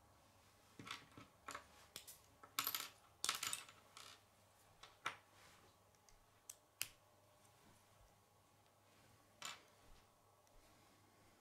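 Plastic K'nex rods and connectors clicking and snapping together as the pieces are handled and fitted. A busy run of sharp clicks and rattles in the first few seconds, then a few scattered single clicks.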